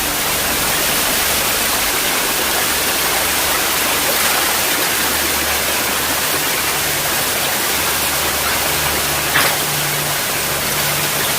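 Steady rush of falling water from a waterfall, with a brief click about nine seconds in.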